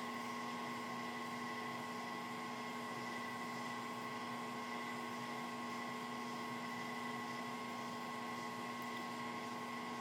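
Steady electric motor hum with a few fixed whining tones from a drill press running with its spindle turning free, nothing being cut.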